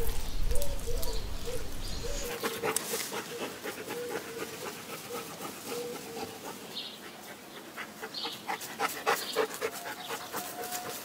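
Short repeated animal calls and chirps over scattered clicks.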